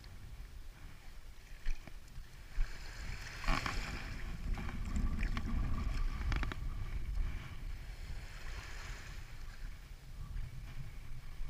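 Wind rumbling on the microphone and shallow sea water splashing and lapping around wading feet, with a few sharp knocks about three and a half and six seconds in.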